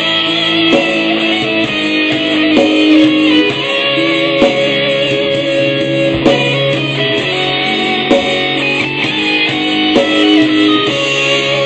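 Instrumental music with held melodic notes over a steady beat, and no singing.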